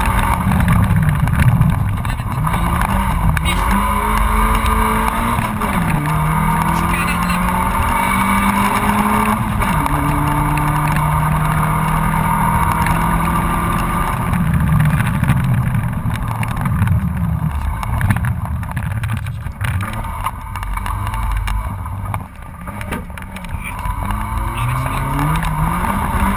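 Honda Civic 1.3's four-cylinder engine heard from inside the cabin, driven hard: its pitch climbs in each gear and drops sharply at every upshift, eases off and turns rougher about midway, then climbs again near the end.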